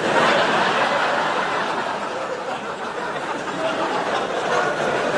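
A large audience laughing: a loud burst that starts all at once and slowly eases off.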